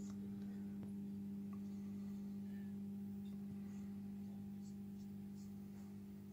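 Steady low electrical hum with a few faint overtones, easing slightly near the end, with a few faint ticks over it.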